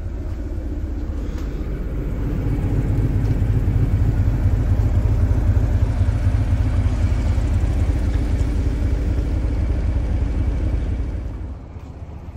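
Diesel locomotive engine running, a loud low rumble that swells over the first few seconds and drops away suddenly near the end.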